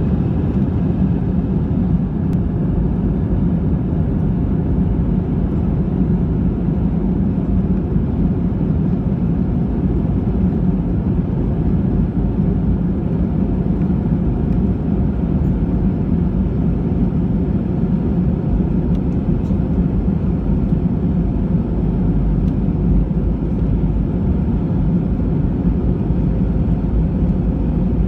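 Cabin noise inside an Airbus A320 on the ground: the engines running at steady power with a low rumble as the aircraft rolls along before take-off.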